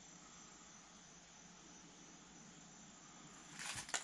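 Faint steady background hiss. Near the end comes a brief scraping rustle that ends in a sharp metallic click, from a hand turning the tractor's coolant filter shutoff valve back open.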